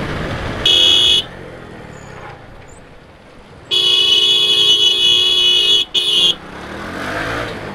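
A vehicle horn honks three times in traffic: a short toot, a long honk of about two seconds, then a quick toot. Motorcycle riding noise runs underneath as the bike slows down.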